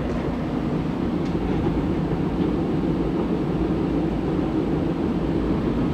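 Belt-driven squirrel-cage blower of an old gas furnace running steadily with the burner shut off, cooling down the heat exchanger; a pretty quiet, even drone.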